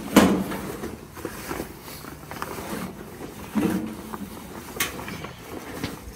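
Heavy fabric grill cover rustling and swishing as it is dragged off a flat-top griddle. The loudest swish comes right at the start, with a few more sharp ones about halfway and near the end.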